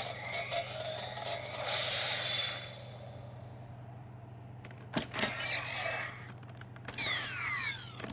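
Electronic sound effects from a Kamen Rider W toy Double Driver belt and Gaia Memories, with two sharp plastic clicks about five seconds in and a quick run of falling electronic sweeps near the end, over a steady low hum.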